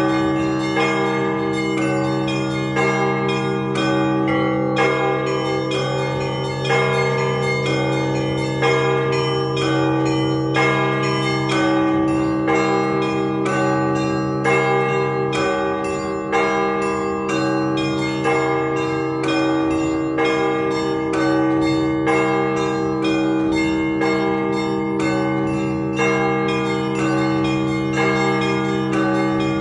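Orthodox church bells rung continuously as a call to service. The smaller bells are struck in a quick, steady rhythm over the unbroken ringing of the deep bells.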